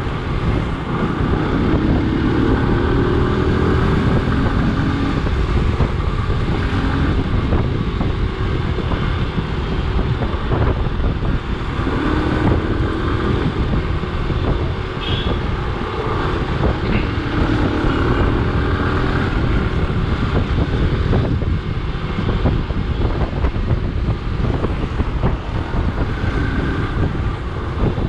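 Motorcycle running along in traffic with steady wind noise on the microphone; the engine pitch climbs as the bike accelerates a couple of seconds in, again around twelve seconds and near eighteen seconds.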